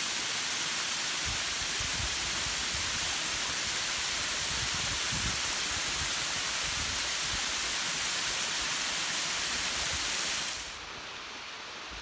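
Waterfall spray pouring onto rock: a steady, loud hiss, with low rumbles of wind on the microphone beneath it. Near the end it cuts abruptly to a much quieter rush.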